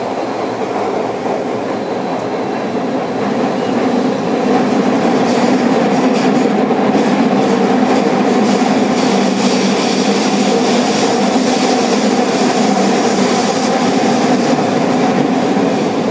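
Running noise heard from inside a JR Kyushu 305 series electric train car (MoHa 305-105) under way: steady wheel, rail and motor noise that grows louder about four seconds in. A thin, high wheel squeal sounds faintly near the middle.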